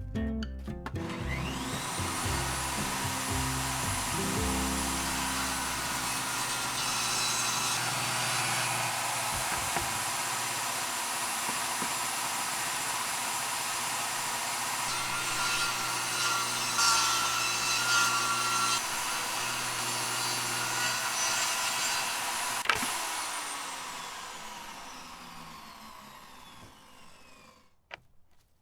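Compact electric table saw starting with a rising motor whine, running steadily, then cutting through plywood for a few seconds midway, when it gets louder and rougher. It is switched off with a click and the blade winds down with a falling whine over about five seconds.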